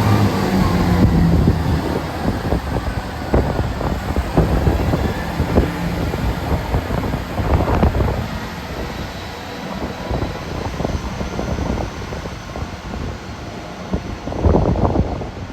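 A train moving on the tracks, with a low rumble that fades in the first couple of seconds, then irregular knocks and clatter. Wind buffets the microphone.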